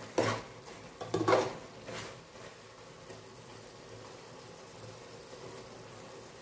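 Metal spoon scraping and clattering against the side of an aluminium pot while stirring simmering chicken, in two loud strokes in the first couple of seconds. After that the stirring is gentle and only the steady simmer of the broth is heard.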